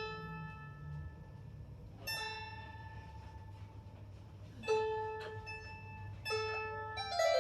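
Single strings of a 16-string lyre harp plucked one at a time, about five notes a second or two apart, each ringing and fading. The strings are being checked during a rough tuning.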